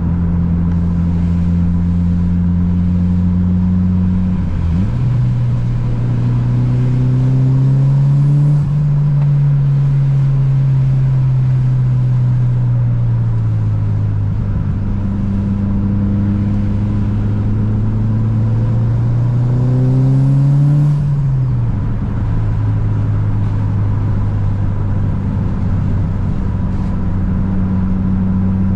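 Mitsubishi Lancer Evolution VIII's turbocharged four-cylinder engine running on the road under light throttle: the engine note climbs twice as the car gathers speed, then drops suddenly on a gear change about twenty-one seconds in and settles to a steady cruise.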